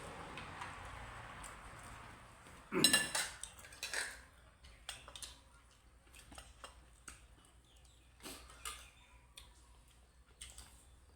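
Cutlery clinking and scraping against dishes while eating: one loud clatter with a ringing clink about three seconds in, then scattered light clicks. A soft hiss fades out over the first two seconds.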